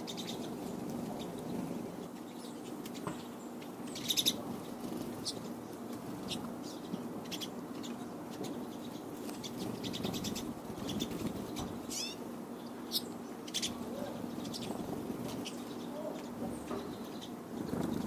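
Pine siskins feeding at very close range: scattered short high chirps and clicks, a brief rapid rattle about four seconds in, and a rising call about twelve seconds in, over a steady low background hum.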